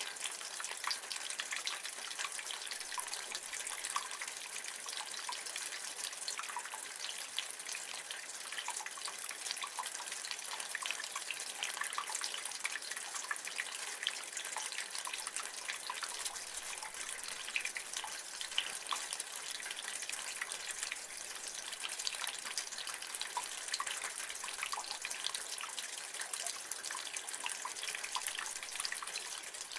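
Rain water running and dripping from a gutter: a steady splashing hiss dotted with many small irregular drips.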